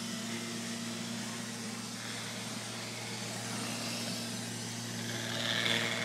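Neato robot vacuum running steadily, its motor and brushes giving a constant hum with a hiss over it.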